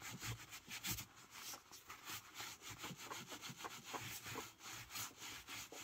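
Sheep's-wool pad scrubbed over tooled leather, working dye into the stamped pattern: faint, quick, irregular rubbing strokes.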